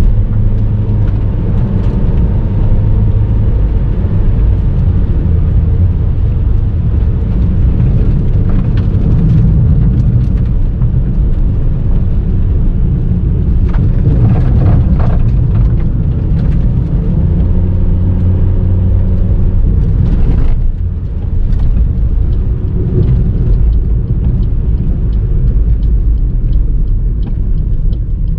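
Car driving on a gravel road, heard from inside the cabin: a steady low rumble of engine and tyres on gravel, with occasional clicks and knocks. The rumble eases briefly about two-thirds of the way through.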